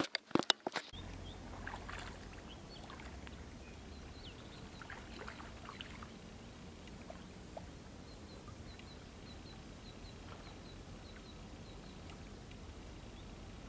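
A few clicks and knocks in the first second, then quiet pond ambience: a low steady rumble with a few faint, short high bird chirps around the middle.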